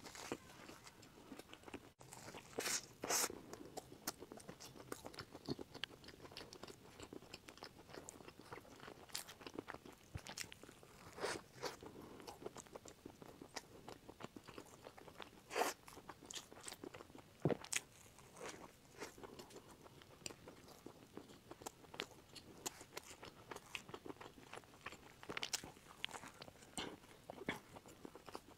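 Bites and chewing into a black, sesame-crusted mammoth bun sandwich: crisp crust crunching in many short crackles, a few bites sharper and louder than the rest.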